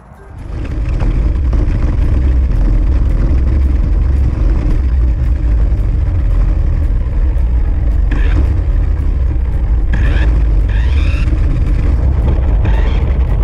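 Remote-controlled car driving over concrete, heard from a GoPro mounted on its body: steady motor and tyre noise with heavy low rumble, starting about half a second in, with a few brief higher-pitched whines about eight and ten seconds in.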